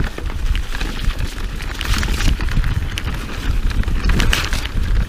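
Mountain bike riding fast down a rough dirt singletrack: wind rumbling on the camera microphone, with the tyres on the dirt and the bike rattling and clicking over bumps throughout.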